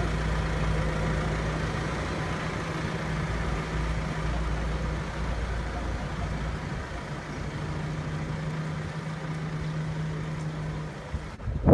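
Farm tractor engine running at a steady idle, a low even drone that wavers briefly midway and cuts off near the end.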